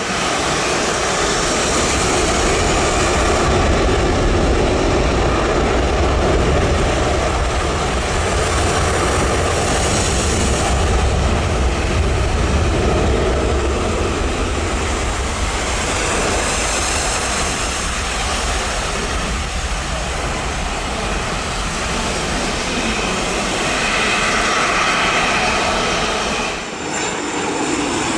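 Jet blast from an Air France airliner's engines at takeoff thrust: a loud, steady jet noise with a heavy rumble of blast wind on the microphone. Near the end it cuts to the quieter sound of a business jet on approach.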